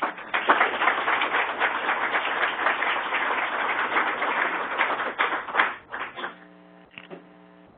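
Audience applauding: a dense spell of clapping of about six seconds that dies away, leaving a steady electrical hum.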